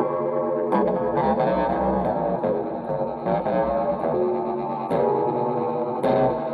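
Improvised instrumental music: plucked-string notes run through effects and distortion, held and sliding in pitch, with a few sharp new attacks along the way.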